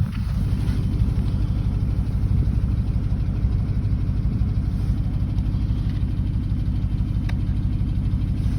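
Porsche Cayenne engine idling steadily, heard up close under the open bonnet, with a faint tick or two about seven seconds in. The owner is listening for a knock and is unsure whether it is a knock or normal running.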